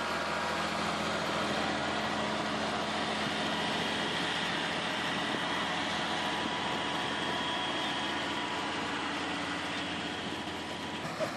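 An engine running steadily at constant speed, with a continuous low hum under a broad noisy wash.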